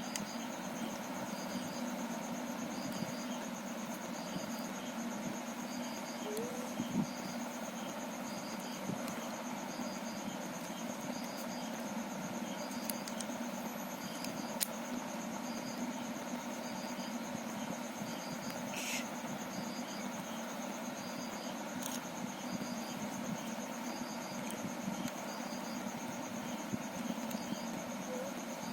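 Steady background hum with a cricket chirping about once a second, and a few faint clicks now and then.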